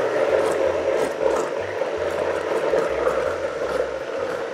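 Countertop blender motor running steadily at speed, chopping jalapeños as they are dropped into a cashew-cheese mixture.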